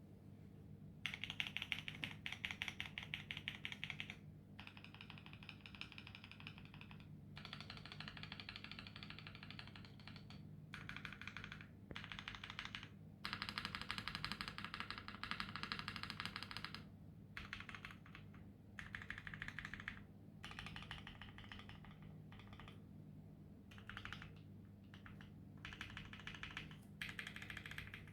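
Custom mechanical keyboard with lubed Boba U4T tactile switches, a PC plate and GMK keycaps being typed on quickly in bursts of a few seconds with short pauses between, giving a muted, deep 'thock'.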